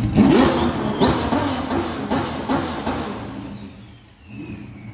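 Race car engine revved hard through about six quick rising pulls, then fading off with a falling whine. A low steady running note is left near the end.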